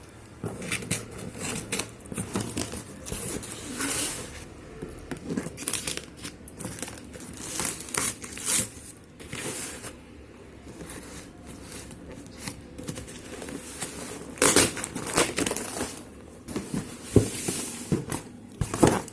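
Packaging being crumpled and torn open by hand: irregular rustling and crackling, with louder bursts around fifteen and seventeen seconds in.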